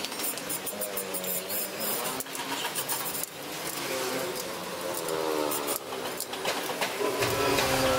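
Motorbike engines passing in street traffic, their pitch rising and falling as each goes by, with light clicks close by. A deeper engine rumble comes in near the end.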